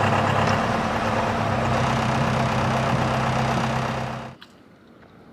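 The catamaran's Mercedes OM636 four-cylinder diesel inboard idling steadily with a low hum, until the sound drops away suddenly about four seconds in.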